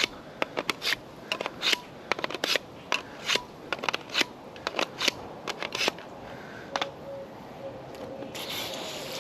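Irregular sharp clicks and knocks, a couple a second, for about six seconds, typical of things being handled and set down. From about seven seconds in, a faint steady hum is heard.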